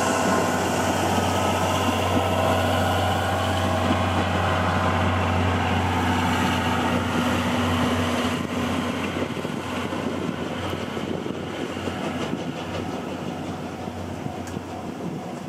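A train hauled by a Tobu Railway C11 steam tank locomotive running past: a steady rolling rumble that slowly fades over the second half.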